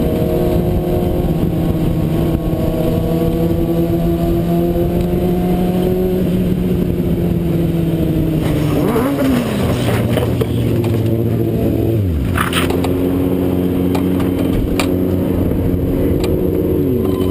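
Motorcycle engine running steadily, its note falling away a few times as the throttle is rolled off. About twelve seconds in there is a short sharp clatter, the rider ahead crashing into the traffic barrels and the guardrail.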